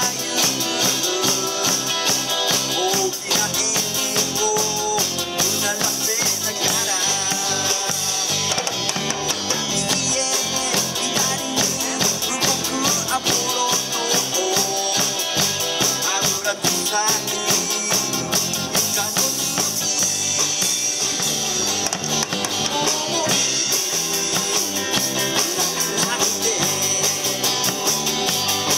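Live rock-and-roll band playing: two electric guitars, electric bass and a drum kit, with a steady wash of cymbals over the beat.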